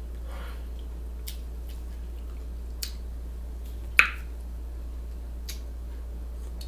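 Sparse wet mouth clicks and smacks from someone chewing a sausage sandwich, with one sharper, louder smack about four seconds in. A steady low hum runs underneath.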